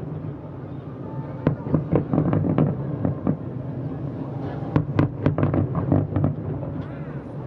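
Aerial fireworks shells bursting in an irregular series of sharp bangs. After a quieter first second or so, the bangs come in quick clusters over a steady low background rumble.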